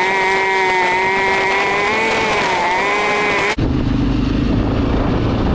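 ATV engine and drivetrain running steadily at cruising speed, a steady whine whose pitch wavers slightly. About three and a half seconds in, the sound changes abruptly to a low, rumbling engine-and-wind noise with the high end gone.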